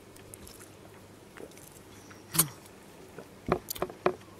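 Plastic water bottle handled while drinking from it: one sharp crackle of the plastic a couple of seconds in, then a few quick clicks near the end.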